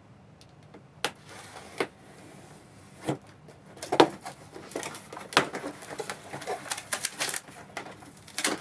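Cardboard box being opened and its contents handled: irregular sharp clicks and knocks with rustling of cardboard and packaging, coming thicker and faster a little past the middle.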